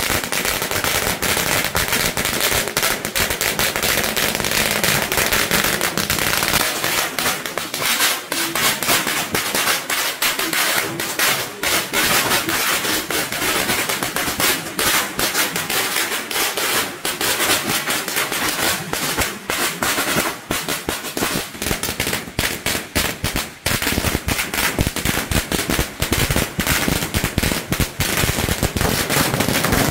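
Long string of firecrackers going off in rapid, irregular, continuous popping, without a break.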